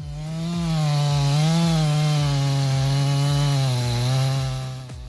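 Timber Pro felling saw machine running under power, a steady pitched machine drone whose pitch wavers slightly as it cuts. It fades in at the start and fades out near the end.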